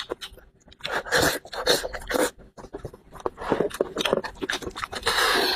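Close-up eating sounds: wet chewing and lip smacks as braised sheep's head meat is pulled apart by hand and eaten. The clicks come quickly, with louder rustling stretches about a second in and again near the end.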